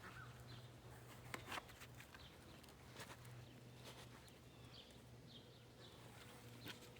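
Near silence: a few faint scattered clicks and rustles over a low steady hum, with some faint bird chirps about the middle.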